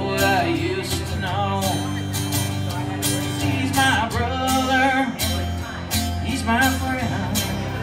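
Country song passage between vocal lines: a pedal steel guitar plays gliding, wavering fills over a strummed acoustic guitar.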